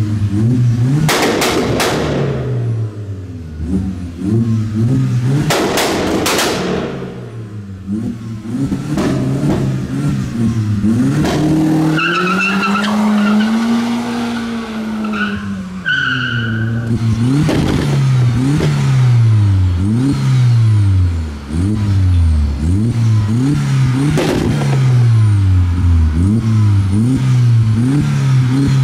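Modified car engines revving hard in repeated quick blips, the pitch jumping up and dropping back about once a second through the second half. There are two loud rushes of exhaust noise in the first few seconds, and a high tyre squeal over a long held rev in the middle.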